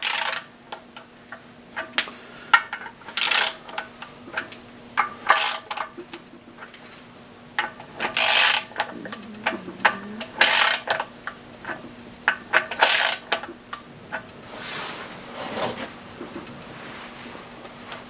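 Hand ratchet wrench clicking in short strokes, a burst every two to three seconds, with small metal clicks between, as camshaft bearing cap bolts are snugged down a quarter turn at a time.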